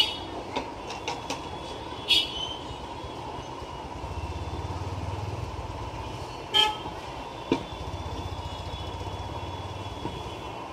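A few sharp knocks and clatter as a laser printer's fuser assembly is shifted about on a workbench, over a steady hum. There is a brief toot about six and a half seconds in.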